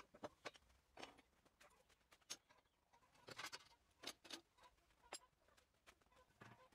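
Near silence with a dozen or so faint, irregularly spaced clicks and light taps.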